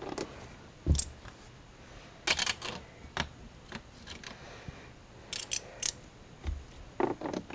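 Scattered metallic clicks and knocks of a socket, extension and ratchet being fitted together and tried on a dash screw, some coming in short quick runs of several ticks.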